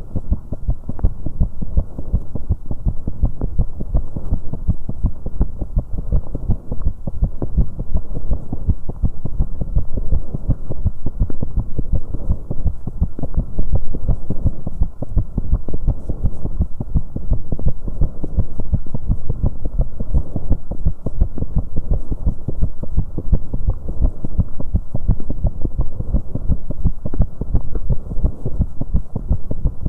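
A person's heartbeat, close-miked at the chest, pounding fast from exercise on an exercise bike: rapid low thuds over a steady low rumble. The heart is one prone to premature ventricular contractions, an irregular rhythm.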